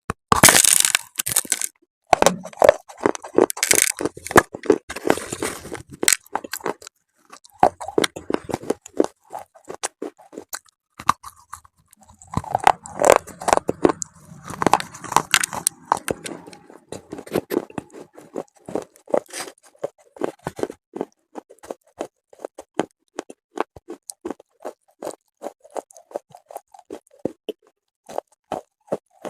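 Close-miked biting and chewing of a hard, brittle, chalky material such as slate pencil: loud crunches in the first couple of seconds and again about halfway through, with a steady rapid crackle of chewing in between.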